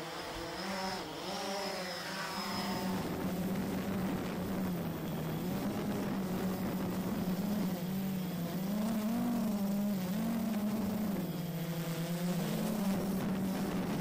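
Quadcopter drone's motors and propellers spinning up and lifting off, rising in pitch and level over the first couple of seconds, then a steady buzzing hum whose pitch wavers up and down as it flies.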